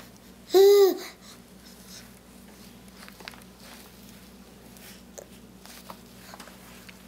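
A toddler's short, loud vocal squeal about half a second in, its pitch arching up and down. It is followed by a few faint scattered taps from small hands on the high-chair tray.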